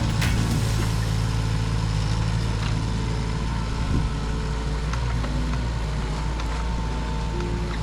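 Kubota U10-5 mini excavator's diesel engine running steadily, with a steady high whine over the low engine hum.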